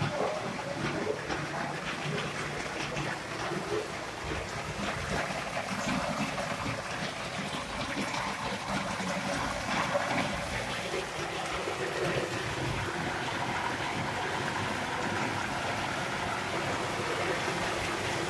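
Optical color sorting machine running, with a steady stream of sorted wheat pouring from its outlet chute into a plastic basin.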